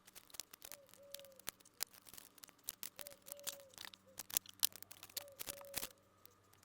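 Small pieces of wood being handled and taped down with tape: scattered sharp clicks and light ticks. Under them, a short two-part chirp repeats about every two seconds over a faint steady hum.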